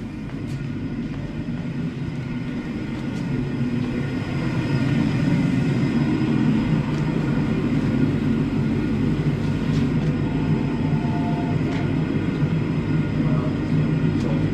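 Induction heater running with a steady low electrical hum that grows louder over the first few seconds and then holds, with a few faint clicks.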